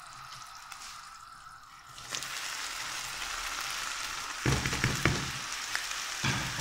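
Sugar syrup bubbling in a pan, sizzling much louder from about two seconds in as boiled rice is tipped into it. A few thumps come later, about four and a half seconds in and near the end, as the rice is emptied from its bowl.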